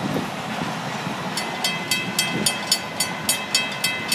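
Tail end of a Florida East Coast Railway train rolling past over the rails. From about a second in, a grade-crossing bell rings about four strikes a second as the crossing gates begin to rise.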